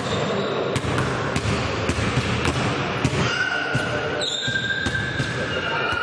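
Basketball bouncing on the court floor during play, a string of irregular knocks over a hum of voices, with high squeaking tones from about halfway through.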